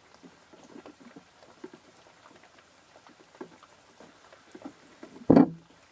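Faint, irregular pattering of rain with small ticks, then one short, loud thump about five seconds in.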